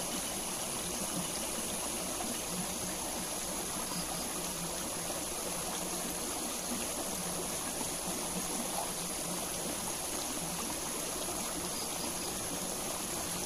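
Small shallow stream flowing and trickling steadily over rock.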